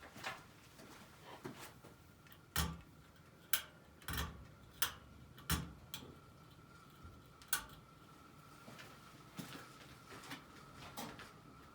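Worn SMC-made ceiling fan running with a faint steady motor whine and irregular sharp clicks and ticks, about a dozen at uneven intervals. This is a unit in very poor condition.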